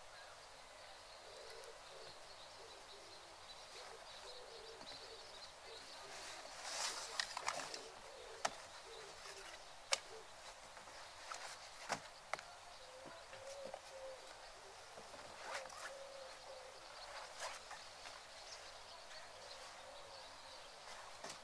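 Faint outdoor ambience broken by a few sharp clicks and knocks, and a low hooting bird call around the middle.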